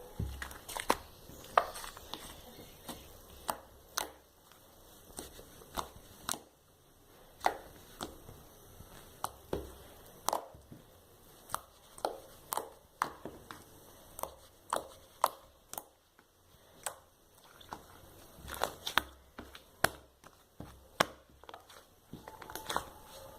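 Slime being squeezed and poked by hand, making irregular sharp pops and clicks, about one or two a second.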